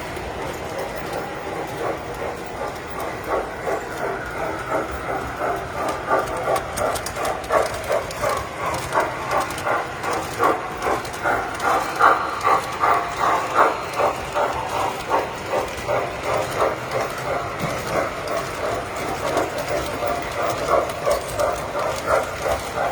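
Tinplate model train running on the layout, with a rhythmic clatter of about two beats a second over a steady mechanical hum. It grows louder toward the middle, as the train comes close, then eases off a little.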